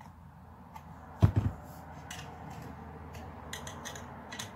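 A wrench clinking on the 8 mm end-cap bolts of a freshly repacked two-stroke dirt-bike silencer as they are snugged up, with one louder knock about a second in and a run of sharp metal clicks near the end.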